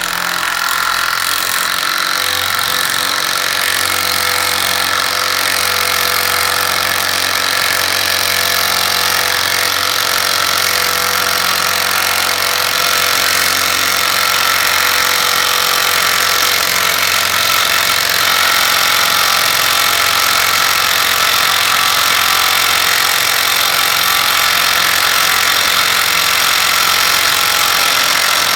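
Enertwist brushless 1/4-inch impact driver running continuously, hammering steadily as it drives a large fastener with its stock bit.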